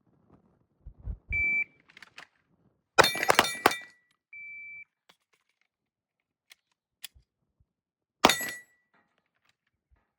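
A shot-timer's steady high beep, then a rapid string of Glock pistol shots. A second beep follows about a second later, then a single faint shot and another short burst of shots near the end.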